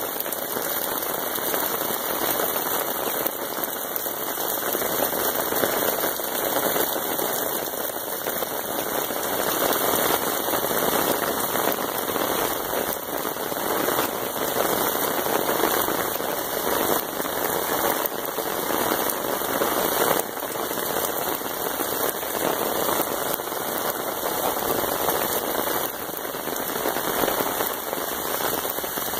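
Heavy rain falling on garden plants, soil, pooled water and concrete, a steady dense hiss of drops that does not let up.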